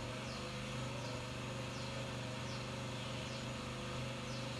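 Quiet room ambience: a steady low hum with faint, short, high chirps that fall in pitch, repeating irregularly about once or twice a second.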